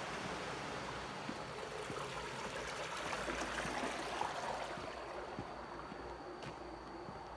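Flowing water that grows louder to a peak around the middle and then fades, with faint footsteps about every 0.7 s.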